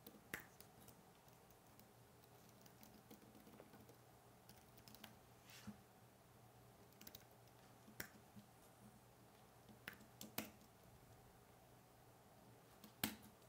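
Faint, scattered keystrokes on a computer keyboard, coming one or two at a time with pauses between, and a louder pair near the end.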